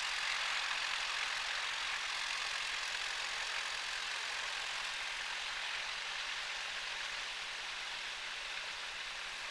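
Grumman single-engine light airplane taxiing at low power: a steady engine and propeller hum heard from inside the cabin, easing slightly toward the end.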